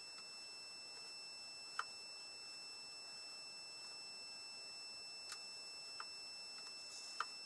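Steady high-pitched electronic whine made of several thin tones held together, with a few faint short clicks, about two, five and a half, six and seven seconds in.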